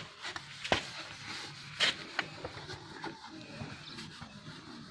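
Cloth rubbing over a motorcycle's painted plastic fairing, buffing off dried polishing paste: a faint rubbing with a few light ticks, about a second and two seconds in.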